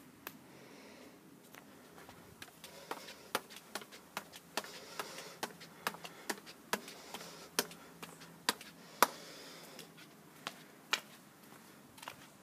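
Footsteps climbing tiled stairs, sharp steps at roughly two a second beginning a couple of seconds in, over a faint background hiss.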